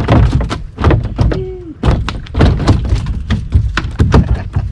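A freshly landed largemouth bass flopping and thrashing in the bottom of a small kayak: a rapid, irregular series of hollow thumps and slaps against the hull.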